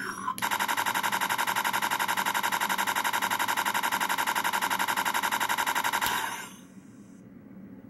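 Electronic rapid-fire gun sound effect from the Arduino-built Lawgiver prop, a fast, even stream of buzzy shots for about six seconds that then stops and tails away.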